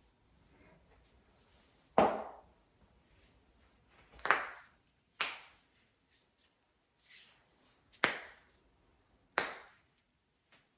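A person cracking their own joints: five sharp pops spaced a second or more apart, with a few fainter clicks between.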